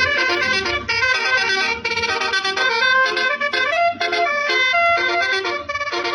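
Basuri telolet-style multi-tone horn playing a quick tune, its notes changing every fraction of a second with short breaks between phrases.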